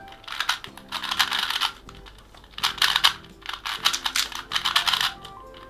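Rubik's cube being turned fast during solving: rapid plastic clicking and rattling of the layers, in three or four quick bursts with short pauses between them.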